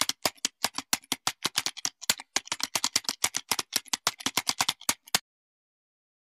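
Typing sound effect: rapid key clicks, about eight a second in uneven runs, keeping time with on-screen text being typed out. It stops suddenly about five seconds in.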